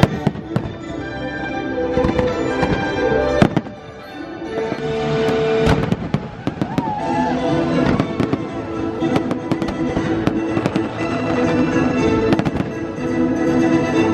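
Fireworks going off in quick succession, with many sharp bangs and crackles and one especially loud bang about three and a half seconds in, over the show's music playing through loudspeakers.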